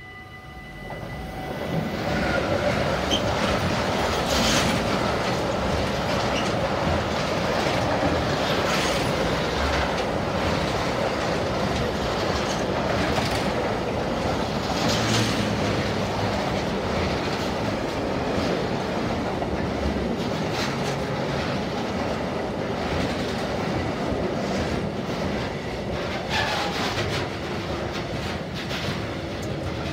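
Container freight train hauled by a Traxx E 186 electric locomotive passing close by. The sound swells within the first two seconds as the locomotive arrives, then the wagons' wheels rumble steadily on the rails with recurring clatters and a couple of brief wheel squeals.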